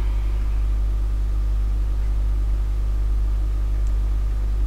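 Steady low electrical hum picked up by the recording, with a constant buzz on top.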